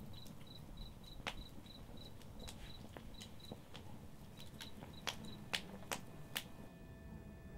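Cricket chirping: short high chirps repeated about four times a second, stopping a little past five seconds in. A few sharp clicks fall among them, and faint held tones come in near the end.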